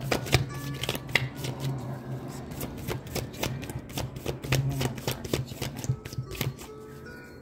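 A deck of cards being shuffled by hand, with quick, irregular riffling clicks several times a second.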